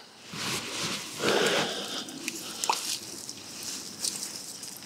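Water splashing and sloshing as a hooked carp thrashes at the surface and is drawn into a landing net, with scattered clicks and rustles. The loudest splash comes about a second in.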